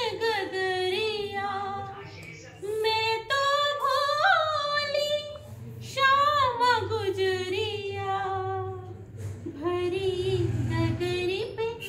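A woman singing a Hindi devotional bhajan solo, in long, wavering melodic phrases with brief pauses for breath.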